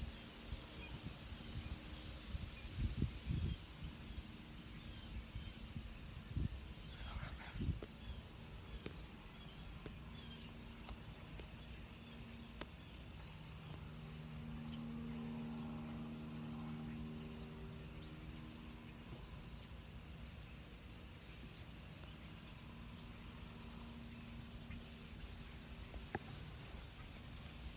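A distant engine hum that swells about halfway through and then fades, over quiet woods with faint high bird chirps. A few soft knocks and rustles of clothing and gear.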